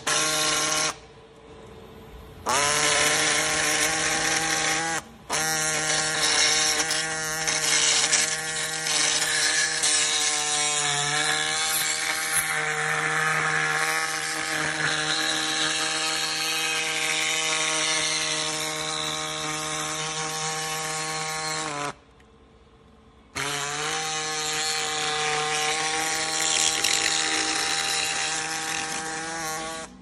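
Pneumatic reciprocating air saw cutting away the outer part of a badly rusted brake dust shield, with the steady hiss of its air exhaust. It runs in bursts and stops briefly about a second in, about five seconds in, and again about two-thirds of the way through. Its pitch rises as it spools up each time and wavers as the blade bites.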